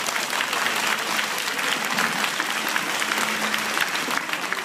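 Audience applauding: a dense, steady patter of many hands clapping at the close of a speech.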